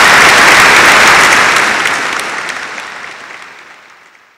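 Applause: a dense patter of many hands clapping that holds for a moment, then fades steadily away to silence.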